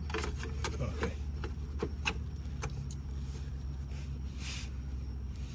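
Plastic underbody cover being handled and fitted into place: scattered light clicks and taps and a short scrape about four and a half seconds in, over a steady low hum.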